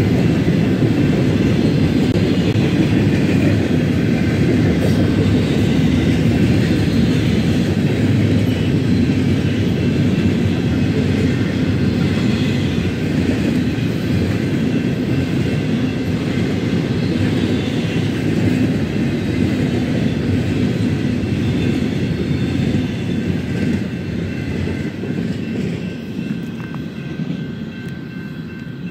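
Freight train of double-stack container cars rolling past, a steady rumble of wheels on the rails that fades over the last few seconds as the train pulls away.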